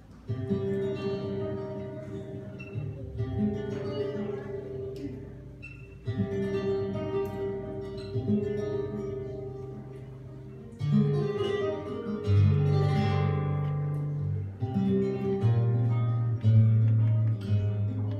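Slow tango music led by guitar, playing held, lingering phrases, with deep bass notes under it.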